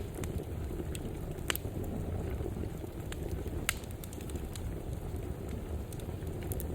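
Fireplace fire crackling: a steady low rumble of burning with scattered sharp pops, the loudest about a second and a half in and again near four seconds.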